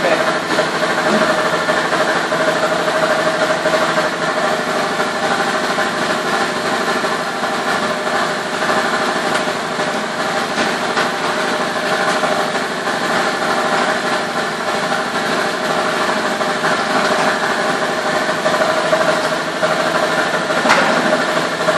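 Industrial machine running steadily, a continuous even hum with a steady mid-pitched tone.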